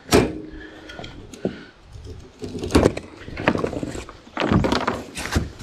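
Tensioned plastic packing strap on a shipping crate snapping as it is cut with a small blade, giving a sharp crack just after the start. This is followed by scattered knocks and rustling as the loose strap is pulled away over the crate.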